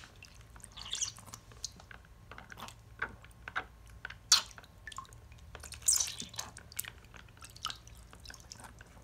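Water splashing and dripping as a small plastic toy doll is dunked into a plastic tub of water and lifted out, with scattered light drips and small sloshes, the loudest about four and six seconds in.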